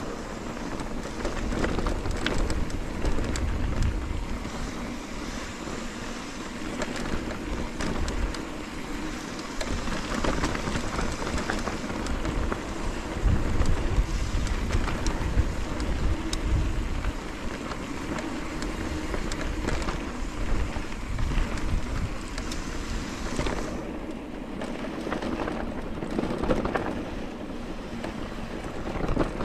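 Wind buffeting the microphone: a steady low rumble with hiss that swells and eases, and scattered faint ticks.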